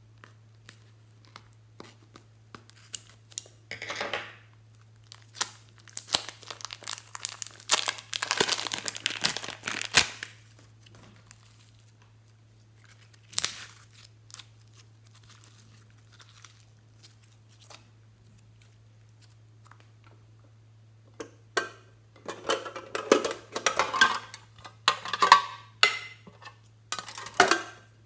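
Slime being squeezed out of a plastic piping bag: crackly squelching of the slime and crinkling of the bag in bursts, with quiet gaps between, busiest over the last quarter.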